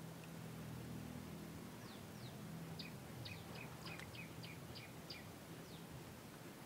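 A small bird chirping: a quick run of short, high chirps from about two seconds in, over a faint low steady hum.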